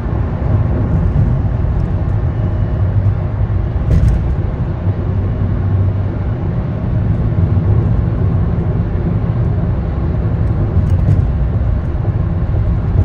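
Steady low road and engine rumble inside a car's cabin at freeway speed, with a light click about four seconds in and another around eleven seconds.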